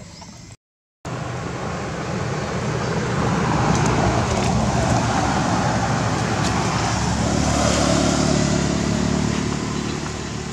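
A motor vehicle passing on the road. Its engine hum and road noise build to a peak over several seconds and then ease off. The sound begins abruptly after a split second of silence.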